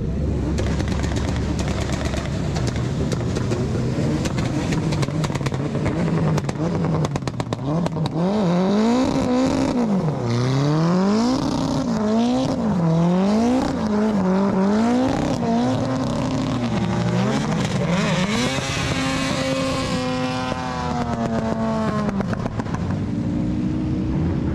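Drift car's engine revving hard, its pitch repeatedly climbing and dropping about once a second as the throttle is worked, then holding high and easing off near the end.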